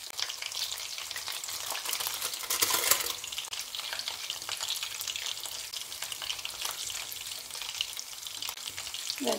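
Battered salt cod (baccalà in pastella) sizzling in hot oil in a frying pan, a steady fine crackle, while a fork stirs saffron into a bowl of batter. A short louder burst of noise comes about two and a half seconds in.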